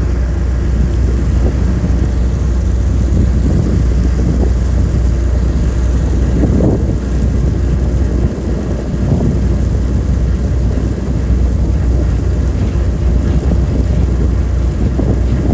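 A car ferry's engines running steadily under way, a deep constant drone, with wind buffeting the microphone in uneven gusts.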